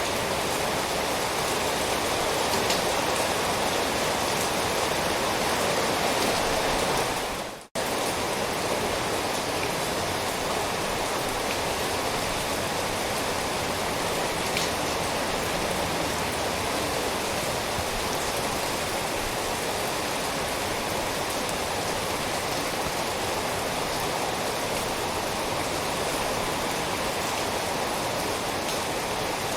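Steady, even rain hiss. A little under eight seconds in it fades out for a moment and cuts straight back in, like the join of a looped recording.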